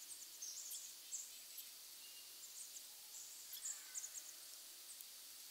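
Faint, high-pitched chirping of small birds in short, irregular clusters over a soft outdoor hiss.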